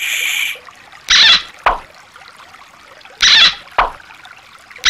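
Three short water splashes, about two seconds apart, each followed by a quicker, lower splash, over the faint steady trickle of a shallow stream.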